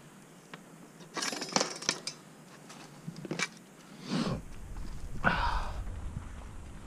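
Light metallic clicks and rattles from a mountain bike being handled, then a clatter and scrape as the bike is laid down on the gravel trail.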